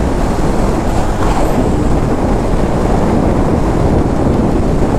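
Honda CB1000R's inline-four engine running at a steady cruise, mixed with heavy wind rush over the microphone. The loudness stays even throughout, with no gear change or rev.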